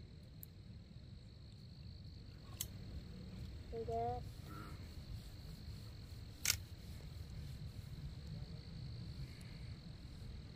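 A steady high insect trill over a low rumble, with two sharp clicks and a brief pitched vocal sound about four seconds in.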